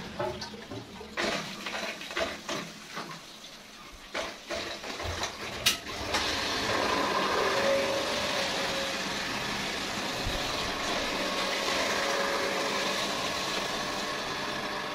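Irregular knocks and clicks as the plastic multiport valve on a fibreglass water-filter vessel is handled, with a sharp click about six seconds in. Then a steady rush of water flowing through the filter as its cleaning cycle runs.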